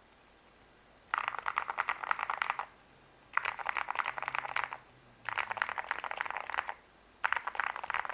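Typing on a Monsgeek M1 mechanical keyboard with Gateron Black Ink V2 linear switches and Drop MT3 keycaps, a thocky sound. There are four quick bursts of keystrokes, each about a second and a half long, with short pauses between them.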